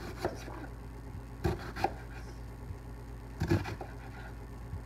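Chef's knife slicing a red onion, about four separate strokes knocking on the cutting board, over a steady low hum.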